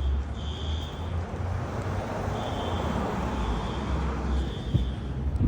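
Fire alarms sounding in the distance: a high beep, about half a second long, repeating in short groups over a steady low rumble.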